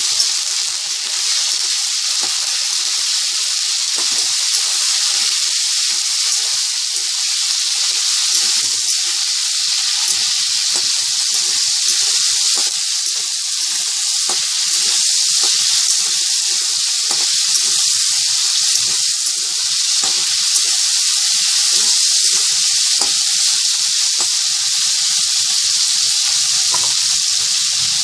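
Chicken pieces frying in hot mustard oil: a steady loud sizzle with scattered crackles and pops, and now and then the sound of stirring in the pan.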